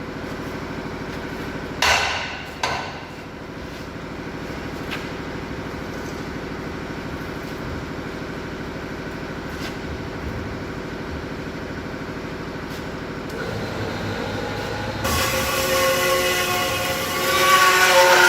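A metal-cutting saw machine runs with a steady hum, with two sharp metal knocks a couple of seconds in. From about 13 seconds its blade begins biting into a large steel piece, rising to a loud, high screech of metal being cut near the end.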